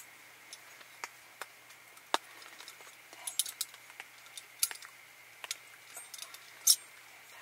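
Scattered light metal clicks and clinks as the fold-out legs and pot supports of a Snow Peak Yaen Stove Lege camping gas burner are opened out by hand.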